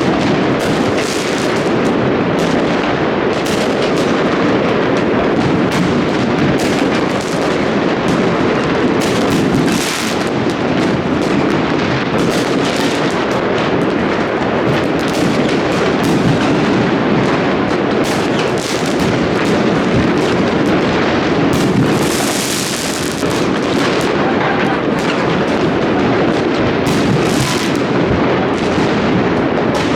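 New Year fireworks going off without a break: many overlapping bangs and booms merging into a continuous rumble, with a burst of crackling a little after the middle.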